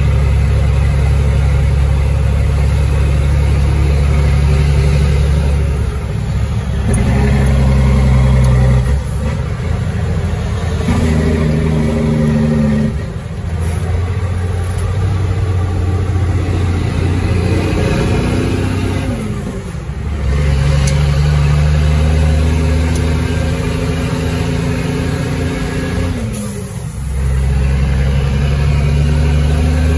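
Caterpillar 3306 diesel in a 1999 Ford Sterling truck pulling under load through the gears of an 8LL gearbox. The engine note climbs in each gear, then the revs drop sharply at each of about five upshifts, with a brief dip in loudness at each change.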